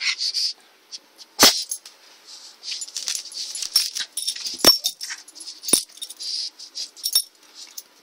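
A pug and a Pomeranian play-fighting: a run of short, breathy scuffling noises from the tussle, broken by three sharp knocks, the first about a second and a half in.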